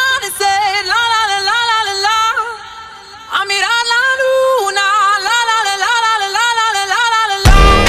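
Background music: a solo singing voice in an ornamented melody with wavering pitch, dropping out briefly around three seconds in. Near the end a loud electronic beat with heavy bass comes in.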